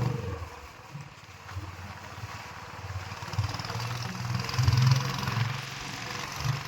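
Motorcycle engine running at low speed, dipping about a second in and growing louder around the middle, with a steady hiss of wind or tyres.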